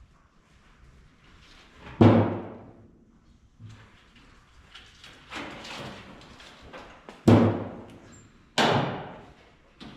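Three loud bangs, each dying away over about half a second, about 2, 7 and 8.5 seconds in, with quieter knocks and handling noise between them: objects being set down or knocked about during hands-on work.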